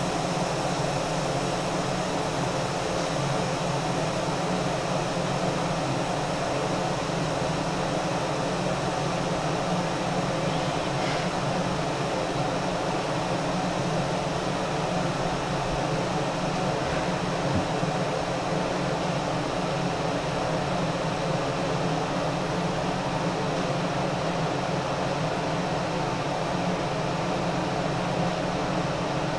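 Ventilation fan running: a steady whooshing with a faint low hum.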